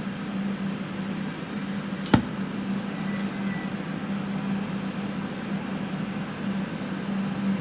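Workshop fume-extraction fans running, a steady whooshing drone with a low motor hum. A single sharp click about two seconds in.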